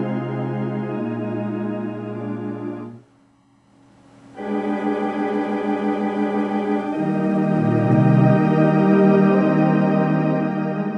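Computer-based virtual pipe organ playing a theatre-organ voicing through speakers: sustained full chords with a bass line. It breaks off for about a second around three seconds in, then resumes, growing louder with deeper bass notes about seven seconds in.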